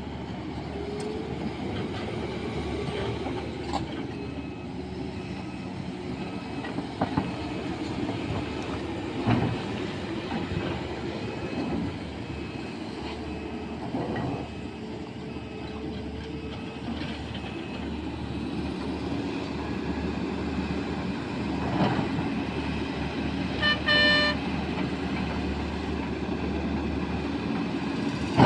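Sany excavator's diesel engine running steadily under load with a rising and falling hydraulic whine, broken by several sharp knocks from the bucket and load. A short horn toot sounds near the end.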